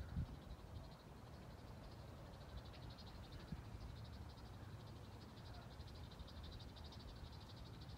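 A small animal's faint, high-pitched trill of rapid pulses runs steadily over a low background rumble.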